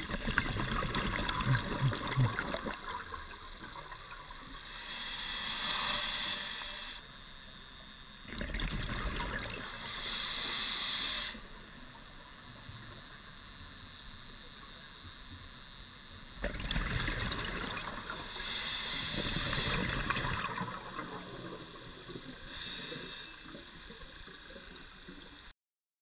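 Underwater recording of a scuba diver's breathing: bursts of exhaled bubbles alternating with the hiss of the regulator, repeating about every eight seconds with quieter water noise between, and cutting off suddenly near the end.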